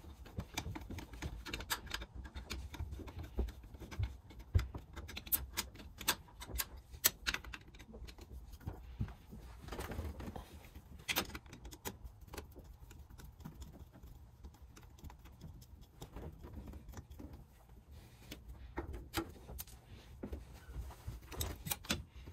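Faint, irregular clicks and clinks of hand tools on metal as the screws holding an ATV's four-wheel-drive actuator are taken out.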